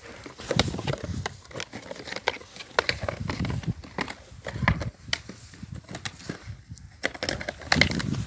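A dog tussling with a toy on grass, mouthing and shoving it: irregular clicks, knocks and rustles with occasional dull thumps.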